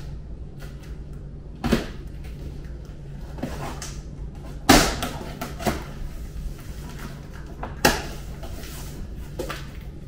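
Large cardboard shipping box being opened by hand with a knife: scraping and scuffing of cardboard and packing tape, with three sharp knocks about two, five and eight seconds in, the middle one the loudest.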